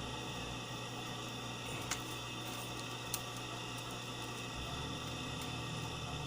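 Steady background hiss and hum, with two short sharp clicks, about two seconds and three seconds in.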